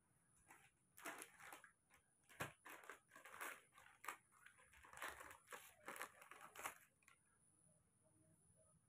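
Faint crinkling and rustling from hands handling things close by, in a run of irregular scrapes that stops about seven seconds in.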